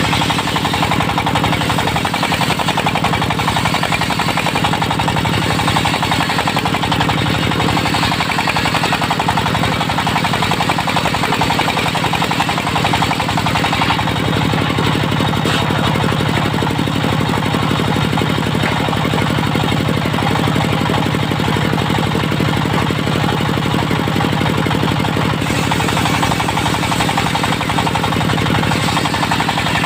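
Diesel engine of a portable circular-saw sawmill running steadily with a rapid knocking beat, together with the whirring of the saw.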